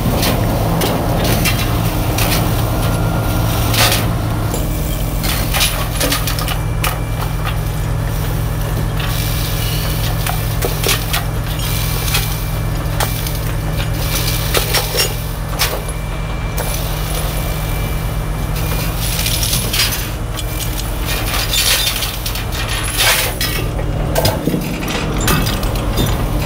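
Heavy transport chain clanking and rattling against a crawler excavator's steel tracks and the wooden trailer deck as the machine is chained down, in irregular sharp clinks and knocks. A diesel truck engine runs at a steady idle underneath.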